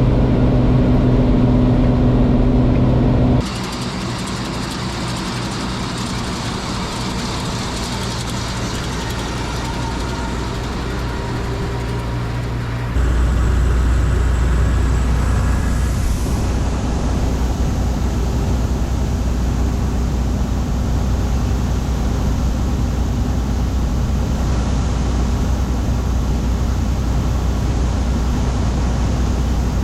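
John Deere 4400 combine running steadily under power, heard in three stretches that change abruptly about three and a half seconds in and again about thirteen seconds in.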